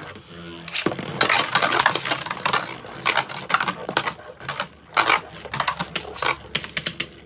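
Gambit Dragon and Lightning Pandora Endless Beyblade Burst tops clashing and clattering in a plastic Surge Stadium: a rapid run of sharp clicks and knocks, thickest in the first few seconds and then thinning to scattered hits.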